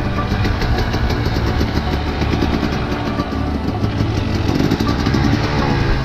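Husqvarna TE 250 enduro motorcycle engine revving up and down under load, heard from a camera mounted on the bike.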